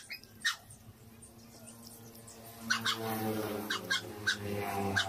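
Close-up eating sounds: sharp wet mouth clicks and lip smacks while chewing roast chicken. Over the last two seconds a drawn-out low pitched hum runs underneath.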